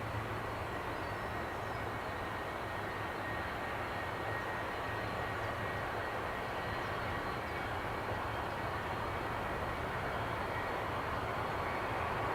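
Jet airliner engine noise, a steady even rumble with a faint high whine, heard from a distance.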